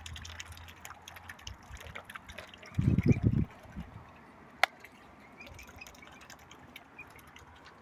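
Birds pecking at biscuits, a patter of small irregular ticks. A brief loud low rumble comes about three seconds in, and a single sharp click about a second and a half later.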